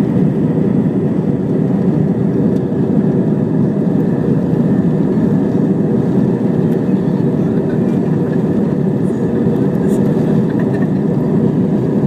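Airbus A320-200 jet engines at takeoff thrust during the takeoff roll, heard from inside the cabin over the wing: a steady, loud rushing noise.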